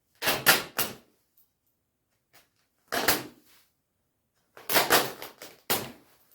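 The shiny nylon shell of a down jacket being torn, in short ripping bursts that come in three clusters.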